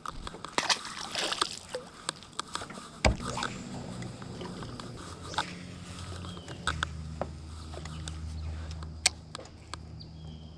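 Handling noise in a small fishing boat: scattered knocks and clicks of hands and tackle against the boat. A low steady hum sets in about three seconds in and grows stronger about seven seconds in.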